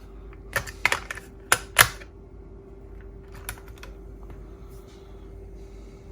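Sharp clicks and clatters of small hard objects being handled on a workbench: a quick cluster of five in the first two seconds, then a couple more about three and a half seconds in, over a faint steady hum.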